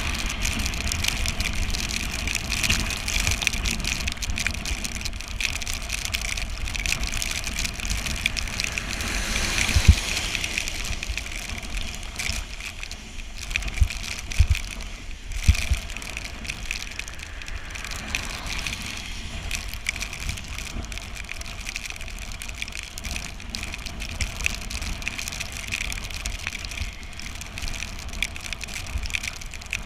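Bicycle ridden on a wet road in the rain: a steady hiss of water and tyres, with a low rumble underneath and a few sharp knocks, the loudest about ten seconds in.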